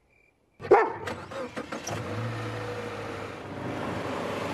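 Faint cricket chirps, then a dog gives one loud bark about half a second in, followed by a few short knocks. A Subaru's engine then runs steadily as the car moves off.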